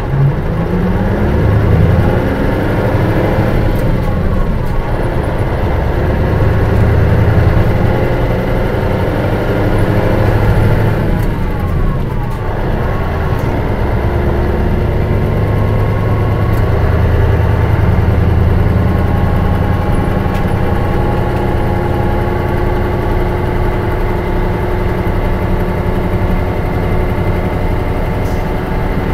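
2002 Mitsubishi Fuso Aero Bus (KL-MS86MP) diesel engine running while the bus drives, heard from inside the coach. The engine note climbs at the start and rises and falls through the gears of its manual gearbox before settling into a steadier cruise.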